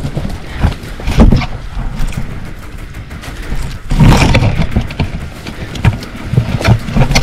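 Irregular crackling and rustling of dense brush and footsteps as a hiker pushes uphill through trailless undergrowth, with loud low buffeting on the microphone, strongest about four seconds in.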